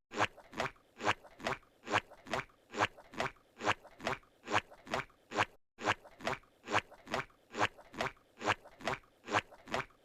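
Squidward's cartoon footstep sound effect: squishy footfalls repeating at a steady walking pace of about two and a half steps a second, with a brief gap about halfway through.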